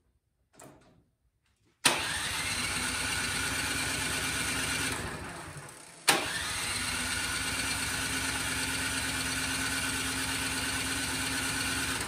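Toro Power Max snowblower engine turned over by its plug-in electric starter in two long cranks without catching: the first starts about two seconds in and winds down about three seconds later, the second starts about six seconds in and keeps going. The engine has no spark, which the mechanic puts down to a fouled spark plug.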